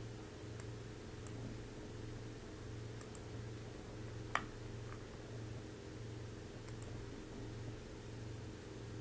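A few sharp computer mouse clicks, some in quick pairs, over a steady low electrical hum.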